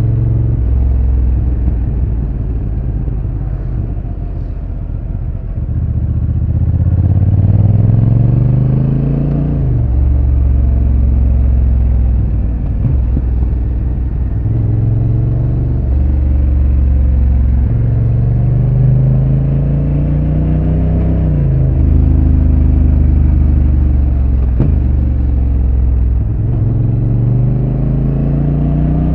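Honda NT1100's parallel-twin engine on its stock exhaust, heard on board while riding: the engine note climbs with the throttle and drops sharply at each gear change, several times over, with steadier cruising stretches in between.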